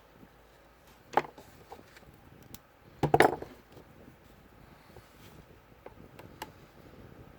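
Handling noise from tying thin copper wire onto a multimeter test lead: a few small knocks and clicks, one sharp knock about a second in and a louder cluster about three seconds in, with light ticks after.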